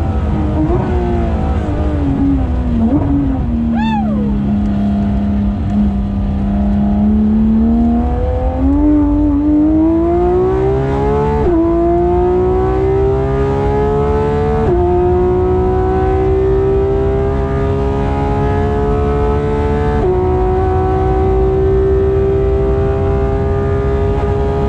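Porsche 991.2 GT3 RS's naturally aspirated 4.0-litre flat-six under braking, with the pitch falling and a short blip about four seconds in. It then pulls at low revs through a slow corner before accelerating hard, its pitch climbing steadily with three quick upshifts, each dropping the note slightly.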